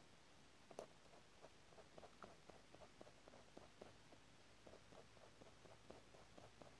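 Faint, quick scratching of a colored pencil on paper, short feathering strokes at about three to four a second, with one sharper tick a little under a second in.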